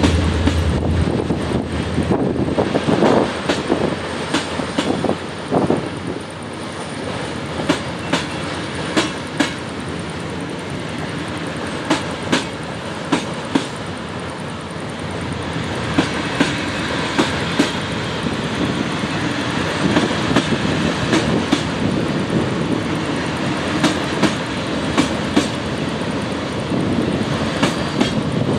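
Passenger train coaches rolling steadily across a railway bridge: a continuous wheel-on-rail rumble with repeated sharp clicks, often in quick pairs, as wheelsets cross rail joints.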